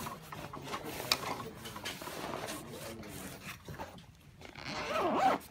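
Fabric changing bag rustling and rubbing as hands work inside it, with a sharp click about a second in and a louder rustle near the end.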